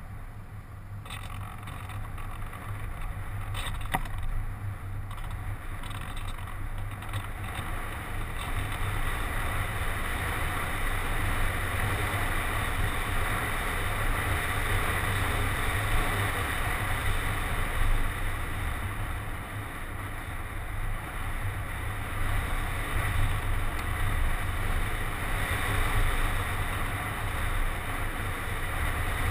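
Rushing airflow over the GoPro camera housing on a ParkZone Radian RC glider in flight: a steady rumbling hiss that slowly grows louder.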